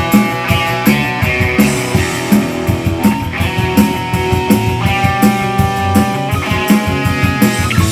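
Electric guitar solo of sustained lead notes, played on a Stratocaster-style guitar over a rock backing track with a steady drum beat.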